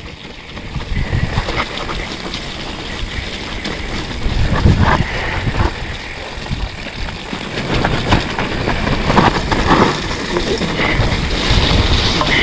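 Mountain bike descending a rough, muddy trail: wind buffeting the handlebar-mounted camera's microphone over the rumble of the tyres, with irregular knocks and rattles from the bike over bumps.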